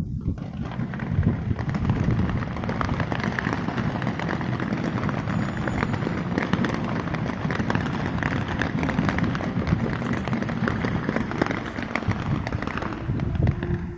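Fireworks display: a dense, continuous barrage of bangs and crackling over a low rumble. It starts abruptly and eases off near the end.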